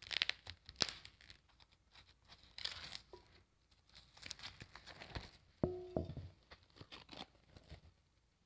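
Plastic food packaging being handled and torn open: irregular crinkling, rustling and crackling, as a package of ground pork is unwrapped.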